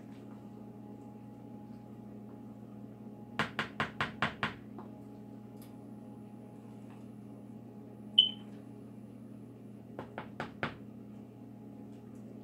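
A spoon knocking against a plastic mixing bowl of potato salad in quick runs of taps: six about a third of the way in and four more near the end. Between them comes a single short high beep, the loudest sound, over a steady low appliance hum.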